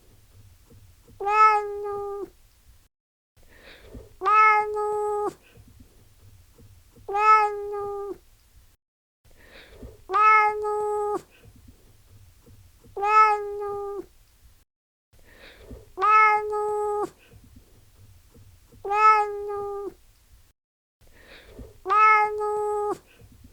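Domestic cat meowing: the same single meow repeated about every three seconds, eight times, each call held at a steady pitch for about a second.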